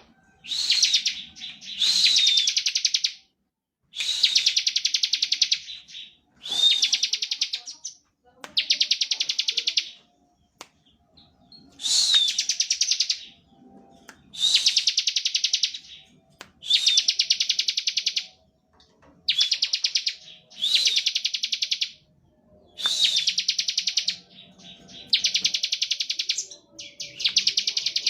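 Bar-winged prinia (ciblek) singing its buzzing 'ngebren' song: about thirteen rapid trilled phrases, each one to two seconds long, with short pauses between them.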